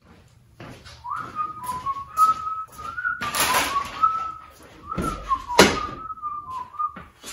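A person whistling a wandering tune, over footsteps and a noisy burst about three seconds in. A loud clunk just before six seconds fits the truck's driver door being opened.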